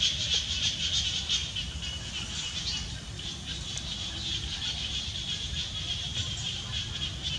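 Outdoor insect chorus: a high, fast-pulsing buzz that holds steady, louder for the first few seconds and then softer, over a low rumble.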